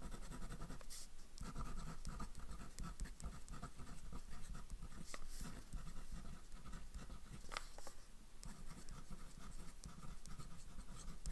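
A pen writing by hand on a small card: the nib scratching through short uneven strokes as letters are written, with a few faint clicks.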